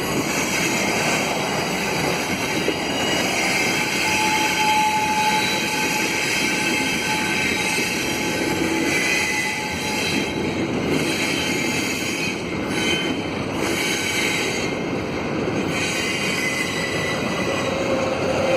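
Double-stack container cars of a Canadian Pacific freight train rolling around a curve, their wheels squealing against the rails with several shifting high-pitched tones over a steady rumble. The squeal comes from the wheels straining through the curve.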